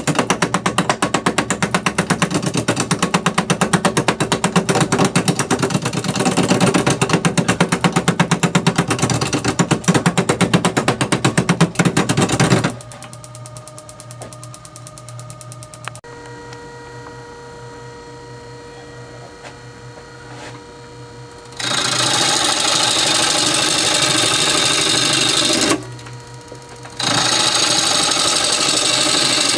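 Wood lathe turning a square oak blank, a roughing gouge hitting its corners in a rapid, even chatter of knocks for the first half. Then the lathe motor hums alone, and in the second half come two spells of steady hissing cutting as the gouge shaves the now rounder wood.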